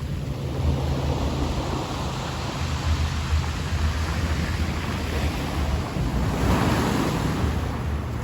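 Sea waves washing in steadily, one wave swelling and breaking louder near the end, with wind rumbling on the microphone.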